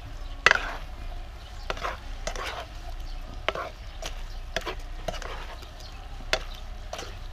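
Black plastic spatula stirring and tossing a shrimp and vegetable stir-fry in a stone-coated non-stick wok: irregular sharp clacks and scrapes of spatula on pan, about one or two a second, over a faint sizzle.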